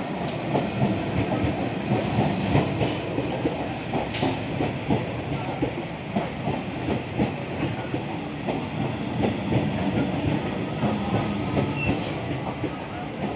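Electric multiple-unit suburban local train running past close by at speed: a steady rumble with a rapid, uneven clickety-clack of its wheels over the rail joints.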